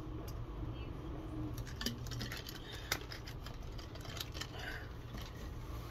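A plastic drinking bottle being handled as it is drunk from and lowered: a run of light clicks and crinkles, clustered a second or two in and again near the end, over a steady low hum.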